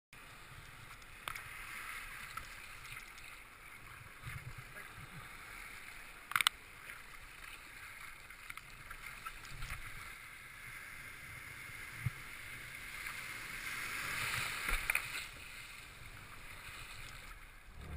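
Sea surf washing and splashing around a kayak's hull, with paddle splashes. The wash swells louder about fourteen seconds in. There is a sharp click about six seconds in.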